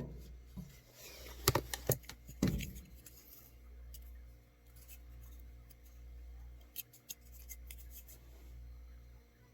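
A few sharp clicks and small metallic handling sounds as the dryer's small thermal fuse and its screws are handled, over a steady low hum.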